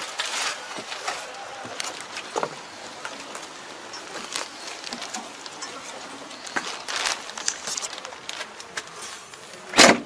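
Scattered light clicks and rustles, with one sharp knock about a second before the end.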